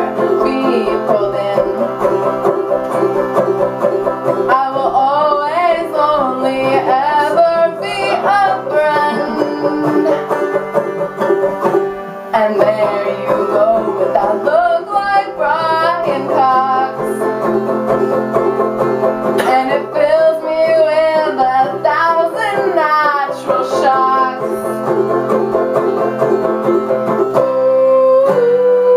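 Banjo strummed steadily while a woman sings: a folk-punk song with banjo accompaniment.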